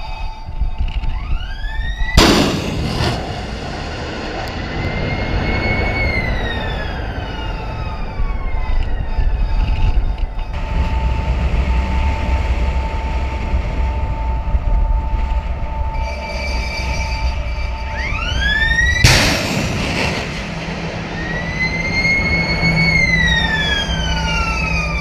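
Jet aircraft passing close by twice, each time a rising jet whine that swells to a sudden loud roar for about a second, then an engine tone sliding down as the jet flies away. A steady low rumble of engines and wind carries on between the two passes.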